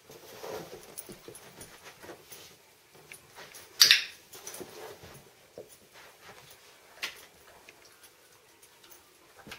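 A German Shorthaired Pointer's soft movement sounds as it works at a rope toy on carpet, broken by a loud sharp click about four seconds in and a fainter click about three seconds later.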